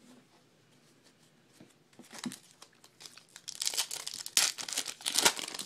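A foil baseball card pack wrapper crinkling and being torn open by hand. It starts about two seconds in and gets louder and denser toward the end.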